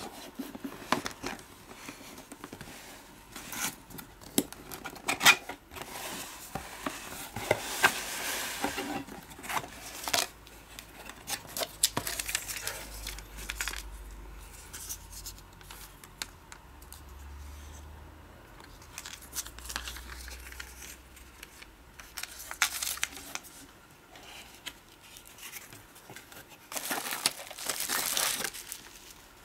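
Camera box being unpacked by hand: cardboard flaps and inner box scraping and tapping, and paper rustling. Near the end comes a longer, louder crinkling of bubble wrap as it is handled.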